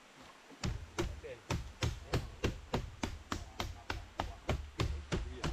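Rhythmic chopping: a steady series of sharp strikes, about three a second, beginning about half a second in.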